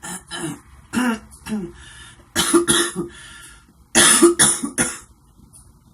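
A woman coughing repeatedly, a smoker's cough she puts down to vaping her e-cigarette: several lighter coughs, then the loudest in two quick runs of three or four coughs past the middle.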